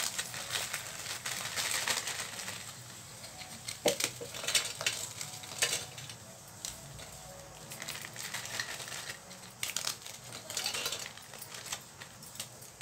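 Parle-G biscuits being broken up by hand in a steel mixer jar: a run of irregular crisp snaps and crackles.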